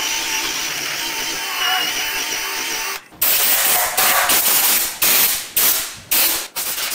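Drill spinning a rubber decal-eraser wheel against a painted motorcycle fuel tank, stripping badge adhesive. About three seconds in it stops, and a series of short blasts of compressed air from an air blow gun follows.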